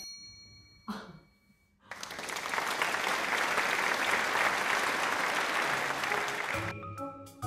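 Recorded applause sound effect: steady clapping from about two seconds in, lasting about five seconds. It is preceded by a short ringing chime, and background music comes back near the end.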